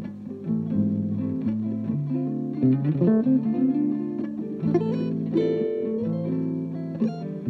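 Acoustic guitar playing gypsy jazz: plucked and strummed chords with notes that keep changing pitch.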